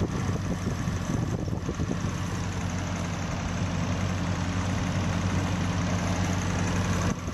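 Toyota Corona's carburetted four-cylinder engine idling steadily with the hood open, just before its carburettor idle air screw is adjusted to cure rough running.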